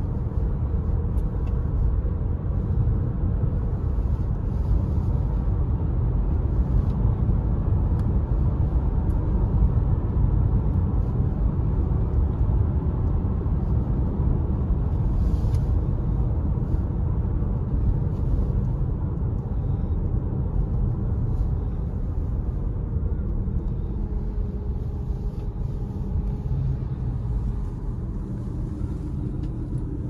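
Steady low rumble of road and engine noise inside a moving car's cabin, easing slightly near the end.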